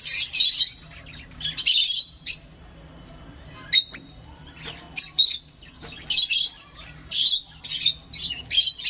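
Small hand-held bird chick giving short, harsh chirping calls in repeated bursts, with a lull of about a second in the middle, then quicker calls toward the end.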